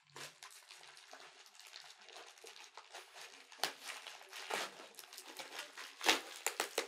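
Plastic mailer parcel being slit with a knife and torn open by hand: faint crinkling and rustling of the plastic, with a few sharper crackles in the second half.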